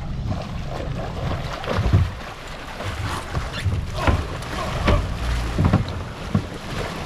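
Sportfishing boat at sea: a steady low rumble with wind on the microphone and water noise, broken by several short thumps or splashes.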